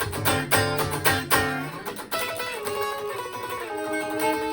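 Gibson ES-335 semi-hollow electric guitar, played clean on the middle pickup position with the volume rolled back a little. It starts with short funky chord stabs, then about two seconds in moves to sustained notes that slide into a held chord.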